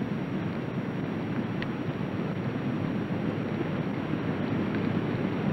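Steady low rushing of water: an underwater reef ambience, with a faint click about a second and a half in.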